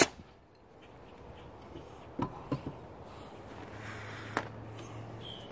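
A single sharp shot from a homemade compressed-air bolt rifle powered by a fire extinguisher tank, at the very start, followed by a few faint clicks and knocks.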